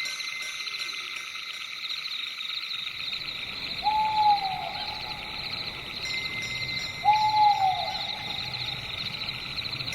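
Crickets trilling steadily in a night chorus, with two owl hoots that each hold a note and then fall away, about four and seven seconds in.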